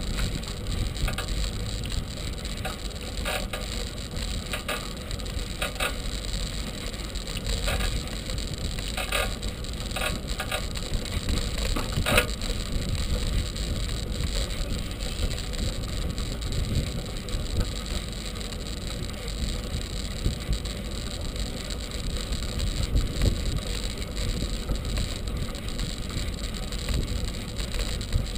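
A bicycle in motion heard from a camera mounted on the bike: a steady low rumble of tyres on the path and wind on the microphone, with scattered rattles and clicks in the first half, the loudest about twelve seconds in.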